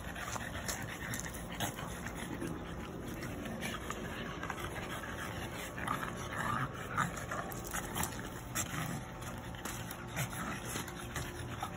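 French bulldogs wrestling in play, with dog breathing and short vocal noises scattered through.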